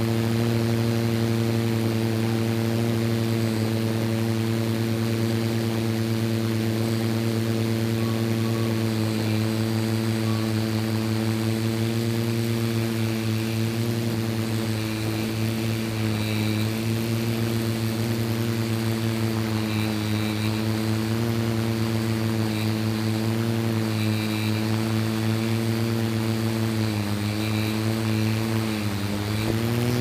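Multirotor drone's motors and propellers humming steadily, heard from the drone's own camera. The pitch dips twice near the end as the drone manoeuvres.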